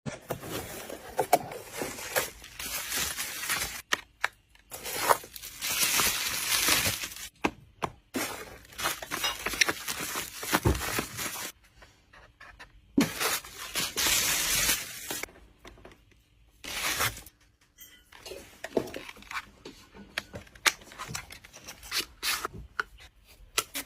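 Packaging being opened and handled: irregular bursts of rustling, crinkling and tearing, with scattered clicks and taps and a few short pauses between them.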